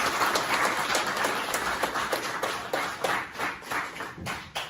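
A small group clapping, the applause thinning out and dying away toward the end.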